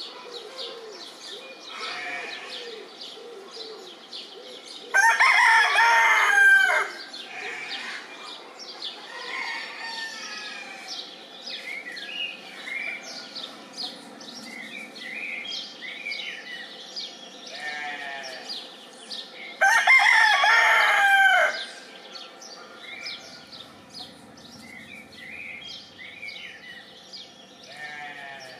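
East-Frisian gull chicken rooster crowing twice, each crow lasting about two seconds, some fifteen seconds apart.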